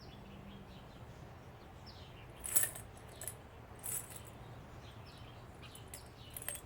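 Two light metallic clinks, about two and a half and four seconds in, over a quiet background with a few faint, short falling bird chirps.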